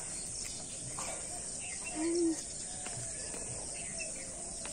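Outdoor ambience of insects keeping up a steady high-pitched drone, with faint bird chirps. A brief low sound comes about two seconds in.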